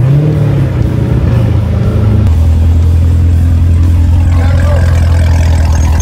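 American V8 car engine giving a few short revs, its note rising and falling, then settling into a steady deep idle about two seconds in.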